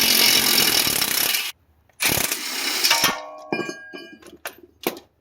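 Impact wrench running on the 16 mm caliper bolt in two bursts, about a second and a half and then about a second, breaking it loose. A metallic clink and ringing follows, like the bolt or a part dropping onto metal, then a few small clicks.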